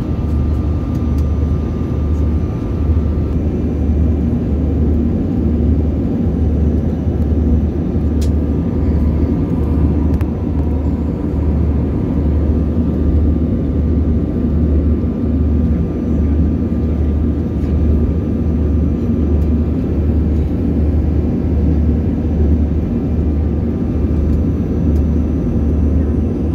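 Steady, low cabin drone of a jet airliner in flight: engines and airflow heard from inside the passenger cabin.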